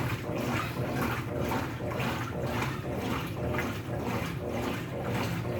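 Consul CWL16AB washing machine agitating a load in water on a test run after a mechanical overhaul: a steady motor hum under rhythmic sloshing, about two swishes a second.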